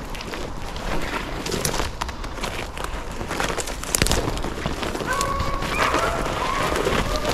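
Crackling and footsteps through brush, then from about five seconds in a pack of beagles baying, with held, overlapping voices.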